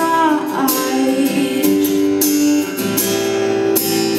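Acoustic guitar strummed in a steady rhythm, chords ringing, with a woman's held sung note trailing off in the first second.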